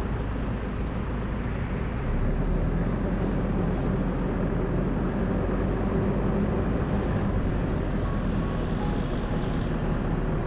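A car driving, with a steady engine hum and road noise throughout.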